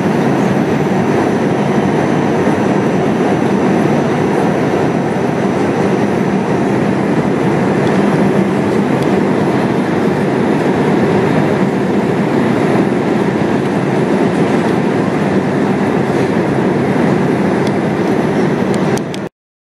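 Jet airliner cabin noise in flight: a steady rushing noise of the engines and airflow, heard inside the cabin. It cuts off suddenly near the end.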